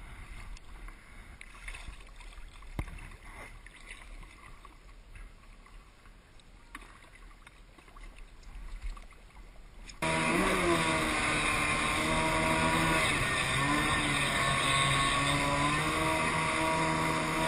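Quiet water splashing and sloshing for about ten seconds, then the Kawasaki 550 jet ski's two-stroke twin engine comes in suddenly and runs loud. Its pitch rises and falls with the throttle as the ski gets under way, with the engine freshly rebuilt and being broken in.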